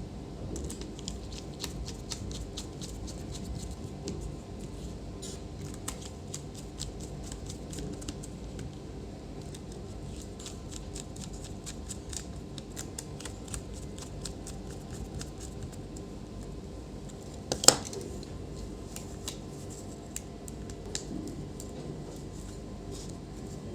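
Many small, rapid clicks and scrapes of hands working on a laptop's plastic case and parts during a display swap, over a steady low hum. One sharper snap comes about eighteen seconds in.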